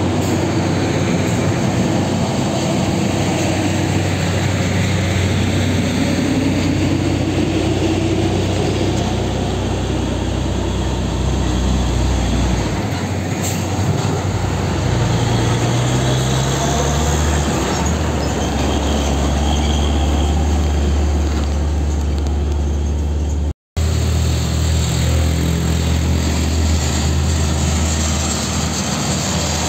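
Heavy Hino Ranger diesel trucks climbing a grade close by, their engines working hard under load. The engine pitch rises a few seconds in as one truck pulls, and again midway. The sound cuts out for a moment about three quarters through.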